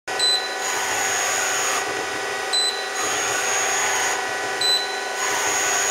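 KIA CNC turning center running under power, a steady machine whine with several fixed tones. On top of it, about every two seconds, a brief high tone comes, followed by a longer high whine of about a second.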